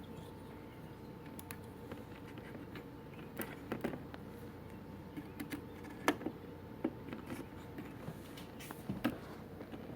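RAM modules being handled and pushed into a motherboard's memory slots: scattered light plastic clicks and taps, a few sharper ones now and then, over a faint steady hum.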